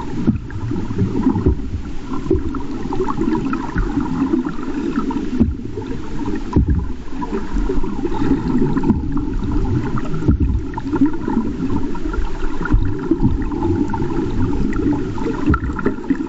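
Muffled underwater water noise: a steady low wash with faint crackling, broken by brief dips every second or few.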